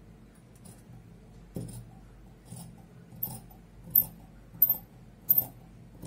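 Dressmaking scissors cutting through fabric: a run of sharp metallic snips in the second half, about one every two-thirds of a second, after a soft knock about one and a half seconds in.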